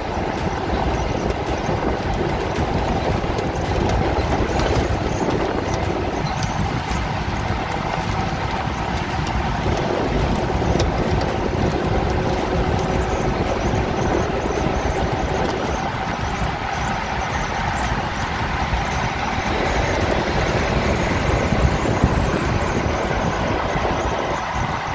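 1985 Jeep CJ7's 4.2-litre straight-six engine running at cruising speed, mixed with steady road and tyre noise, heard from inside the cabin.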